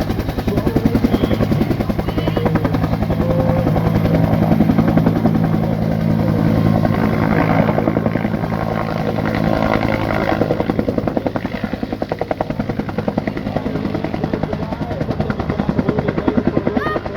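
Bell UH-1 'Huey' helicopter running as it takes off, its rotor blades chopping in a fast, even rhythm over the engine's steady tone.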